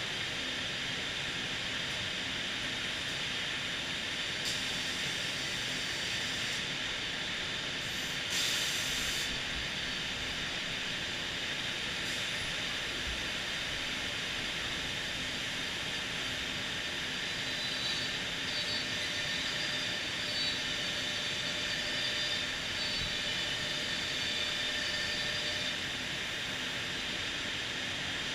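Homag BAZ CNC processing center running with a steady hiss, with a brief louder hiss about eight seconds in.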